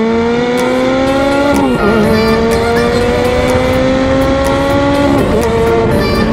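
Ferrari F430's naturally aspirated V8 accelerating under load: the exhaust note climbs steadily in pitch and drops sharply at each upshift, twice, about 2 s and 5 s in.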